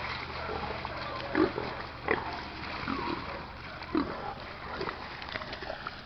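A hog squealing in short, loud calls about a second apart while a catch dog holds it by the head.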